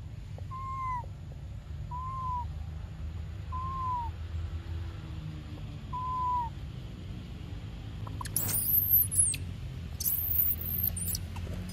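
Four short, slightly arching hoot-like calls about a second and a half apart. From about eight seconds in come two bouts of shrill, very high-pitched squealing from a baby macaque screaming.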